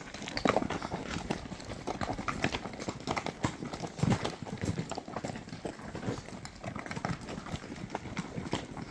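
Horses' hooves clopping on a rocky dirt trail at a walk: an uneven run of several knocks a second from the ridden horse and the horses just ahead.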